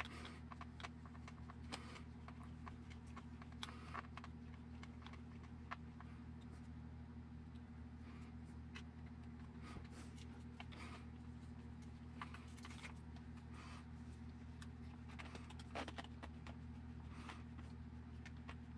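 Faint, scattered clicks and scrapes of a hex driver turning small aluminum screws into the metal chassis plate of an RC buggy, over a steady low hum.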